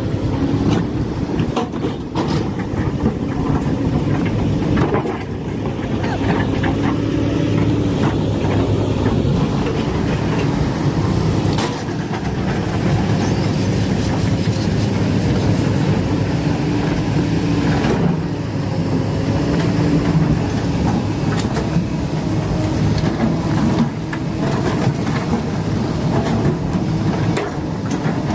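Hydraulic excavator's diesel engine running continuously, its note shifting and dipping briefly several times, with occasional knocks.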